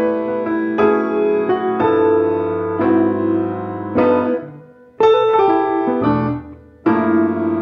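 Grand piano playing chords and melody together with a semi-hollow electric guitar in a duo; the playing briefly fades to a pause twice in the second half.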